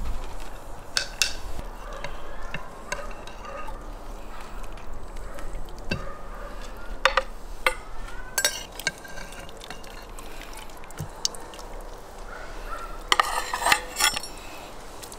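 A metal slotted skimmer stirs and scoops in a metal pot of broth, scraping and clinking against the pot. There are a few knocks about a second in, a cluster around the middle and a quick run of clinks near the end.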